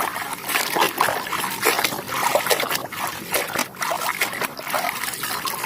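Water splashing and trickling as a muddy toy vehicle is washed, with many small irregular knocks.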